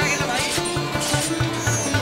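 Background music in an Indian classical style: a plucked string instrument playing a melody over sustained low notes.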